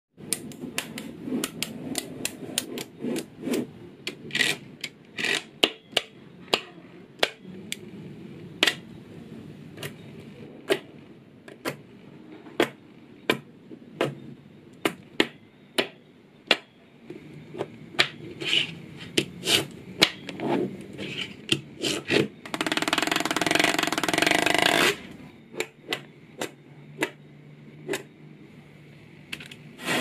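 Small magnetic balls clicking as they snap onto each other and onto the build, one sharp click after another, often about two a second. Near the three-quarter mark comes a continuous rattle of balls lasting about two seconds.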